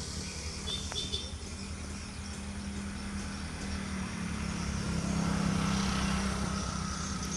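Diesel locomotive engine running with a steady low hum, growing louder about five seconds in.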